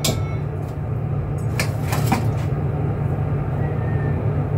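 Steady low rumble of kitchen cooking equipment at the stove, with two light metal clinks of a ladle against a pot about one and a half and two seconds in.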